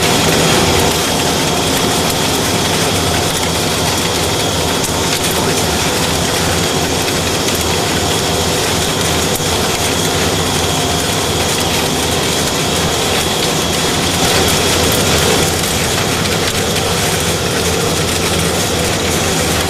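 Okuma Millac 852V vertical machining centre cutting metal: a steady grinding cutting noise with a faint high whine running through it.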